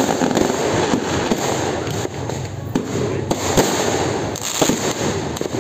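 Fireworks going off in quick succession: many sharp bangs and pops, several a second, over a continuous dense crackle.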